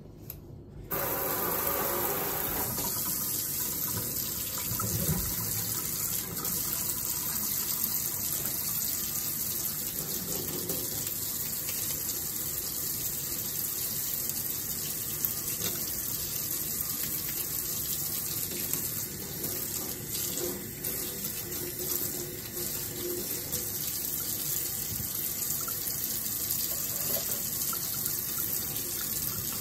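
Tap water running into a stainless steel sink while metal nail tools are rinsed and scrubbed under the stream. It starts about a second in and keeps up a steady rush.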